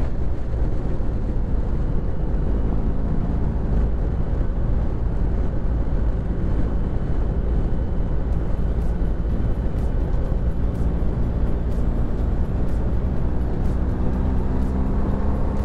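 BMW R1250 GS Adventure motorcycle cruising at freeway speed: a steady, loud low rumble of wind and road noise over the bike's boxer-twin engine.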